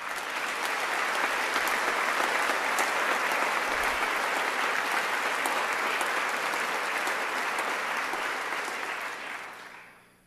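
Audience applauding together, starting at once and holding steady for about nine seconds before dying away near the end.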